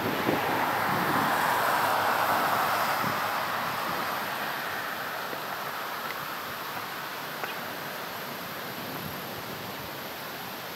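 Outdoor street ambience: a steady rushing noise, loudest in the first few seconds and then slowly fading, with a faint tick or two.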